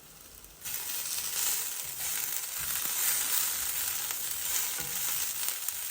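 Chopped onions sizzling in hot oil in a pan, the hiss starting suddenly about half a second in and then running steadily, with a few soft knocks of a wooden ladle stirring them.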